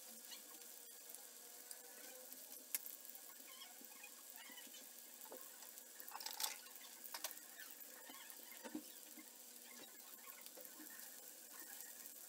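Meatball patties frying in shallow oil in a grill pan: a faint steady sizzle with scattered crackles and pops, and a short burst of louder clicks a little past halfway.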